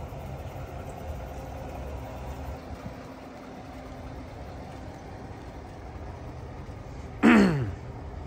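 Steady low rumble of a pickup truck's engine idling. About seven seconds in, a short, loud sound with several pitches falls steeply for about half a second.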